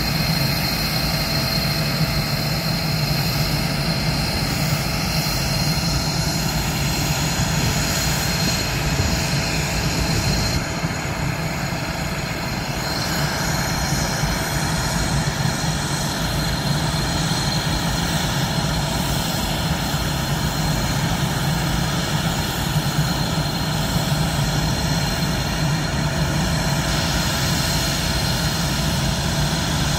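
Northrop F-5 fighter jets' turbojet engines idling, a steady high whine over a continuous low rumble.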